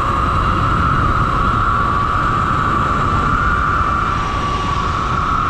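Wind rushing over the microphone while riding, with a steady high-pitched whine running underneath.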